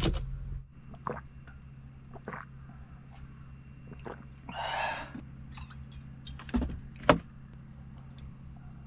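A brief gush of water about halfway through, amid scattered light clicks and knocks, with two sharper knocks shortly after, over a steady low hum.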